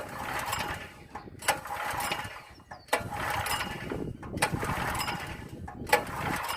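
Recoil starter of a new open-frame portable generator pulled about five times, roughly one pull every second and a half, each a sharp snap followed by the engine turning over briefly without firing. The engine is being cranked without gasoline to prime its fresh oil.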